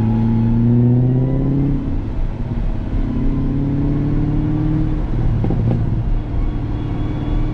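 BMW E34 540's V8 and critically worn ZF transmission accelerating, the pitch rising through two gears, then holding steady at cruise. The gearbox whine comes from wear after the transmission was run dry, and an additive has not quieted it.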